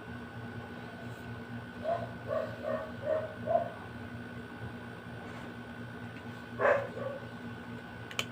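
A dog yipping, a quick run of short barks about two seconds in and one louder bark later on, over a steady electrical hum.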